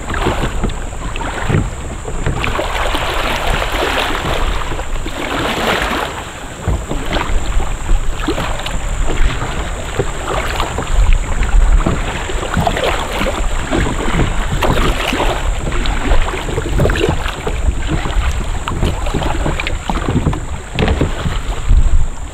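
Kayak moving on choppy water: irregular slaps and splashes of water against the hull, with wind rumbling on the microphone.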